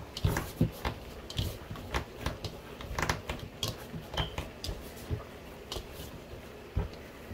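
Roti dough kneaded by hand in a plastic bowl: irregular soft slaps, thumps and clicks as the dough is pressed, folded and worked.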